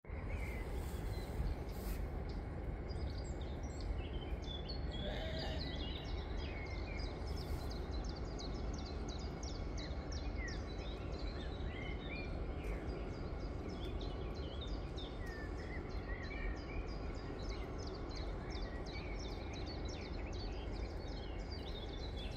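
Steady low outdoor rumble with small birds chirping and twittering throughout, many short high chirps in quick succession.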